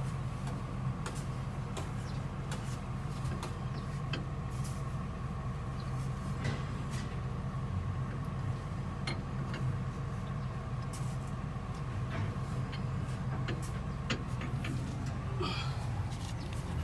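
An engine running steadily with an even low hum and a faint steady whine, with scattered light clicks and knocks.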